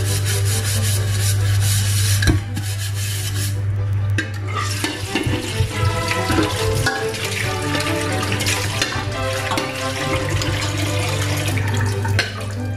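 A pot of sliced bottle gourd cooking on a gas stove, its contents sizzling and bubbling under background music with a steady low hum. Near the end a metal pot lid is set on with a short clink.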